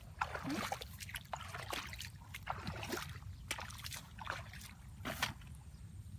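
Water splashing and sloshing in quick, irregular splashes, over a steady low hum.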